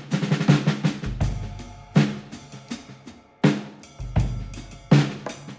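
Background music with a drum-kit beat and bass.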